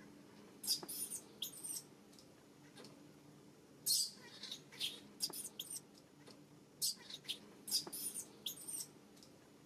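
Newborn macaque crying in short, very high-pitched squeals, coming in three bunches of several squeaks each, a sign of the baby's distress.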